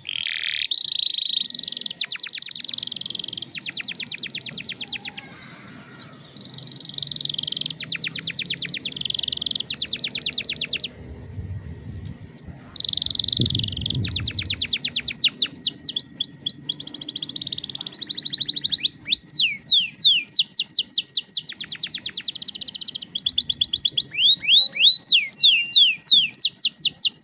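Domestic canary singing a long, continuous song of rapid trills and quick down-sweeping notes, broken by brief pauses.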